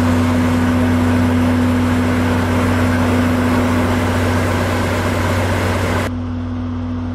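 DE10 diesel-hydraulic locomotive's V12 diesel engine idling, a steady low hum. A loud rushing noise over it cuts off suddenly about six seconds in.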